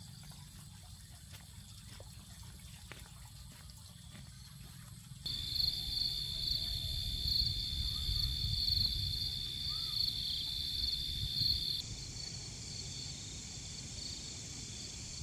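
Insects trilling in a steady, loud, high-pitched chorus that starts abruptly about five seconds in over a low rumble. Near the end it gives way to a fainter high hiss.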